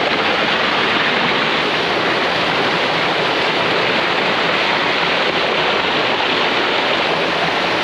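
Small waterfall: creek water rushing steadily over boulders in a slot canyon, a loud, even rushing with no breaks.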